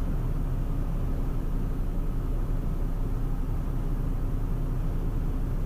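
Steady cockpit noise of a Cessna Citation CJ4 business jet in the climb: an even, low rumble of slipstream and its twin turbofan engines, with a faint steady hum.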